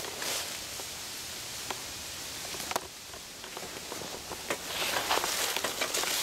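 Footsteps walking through dry fallen leaves, a steady crunching rustle with scattered sharp crackles; it grows louder about four and a half seconds in.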